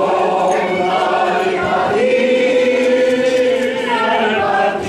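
A man singing a traditional song into a handheld microphone, with other voices singing along as a group. One note is held for about two seconds in the middle.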